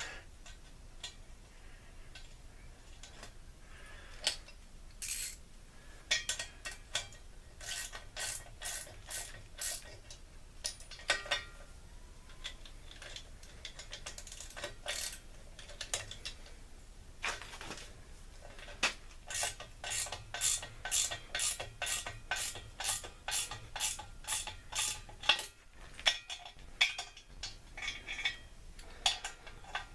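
Ratchet wrench clicking as a nut is run down a bolt, with scattered metal clicks at first, then a steady run of about two clicks a second.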